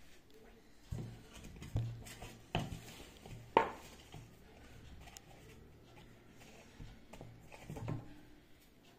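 Hand kneading and gathering flour dough in a stainless steel mixing bowl on a wooden table: a few scattered soft knocks and thumps, the sharpest about three and a half seconds in.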